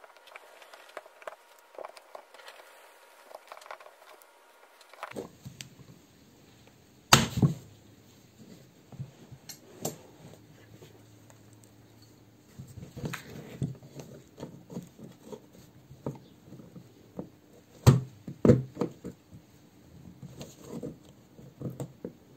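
Pliers and hands working on a Classic Mini's cast-iron brake master cylinder: scattered clicks, scrapes and knocks of metal tools on the part, with loud sharp knocks about seven seconds in and twice around eighteen seconds in.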